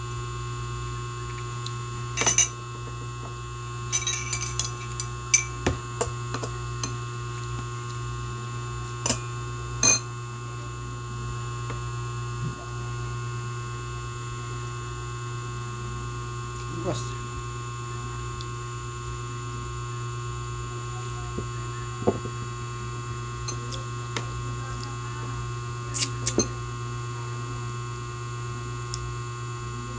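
Steady electrical hum, with a few short clinks of a drinking glass, most of them in the first ten seconds and two more near the end.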